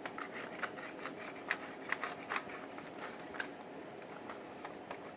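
A plastic toy gun being handled: scattered small clicks, taps and rubbing of plastic parts, likely the silencer being fiddled with.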